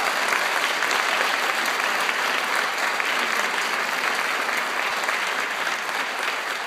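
Theater audience applauding, a dense steady patter of many hands clapping that eases slightly near the end.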